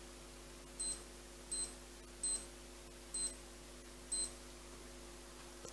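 A Spintso Ref Watch 2X digital referee watch gives five short, high key-press beeps at uneven intervals as its up/down buttons are pressed to step through stored stopwatch lap times.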